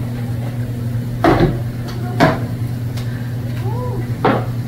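Three sharp knocks, a teppanyaki chef's tools striking the steel griddle, the first about a second in and the last near the end, over a steady low hum.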